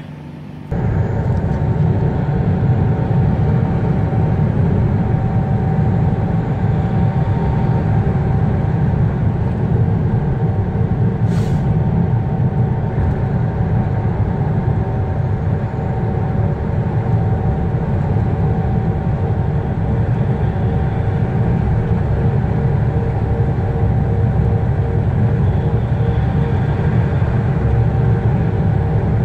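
Heavy truck's diesel engine and road noise heard from inside the cab while cruising on the highway, a steady loud low rumble with a faint steady whine. A short hiss comes about eleven seconds in.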